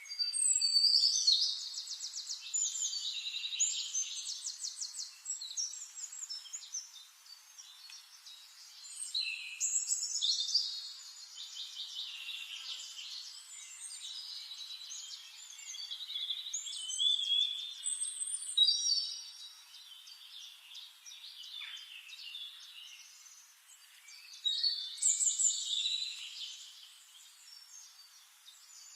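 Songbirds singing: long, rapid trilled and warbling phrases in four bouts a few seconds apart, the first and the one about nine seconds in the loudest, quieter twittering between them.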